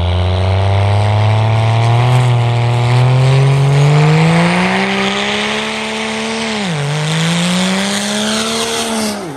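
Diesel pickup truck accelerating hard at full throttle while pouring black smoke, its engine note climbing steadily. It dips briefly at a gear shift about seven seconds in, climbs again, and falls away as the truck passes near the end.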